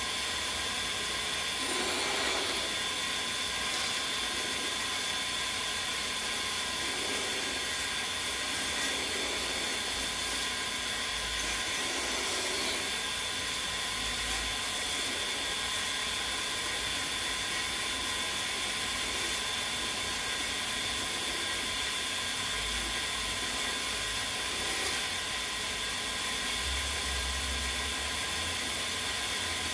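Electric drill serving as the motor of a homemade wood lathe, running steadily with a constant whine and a hiss of wood being worked.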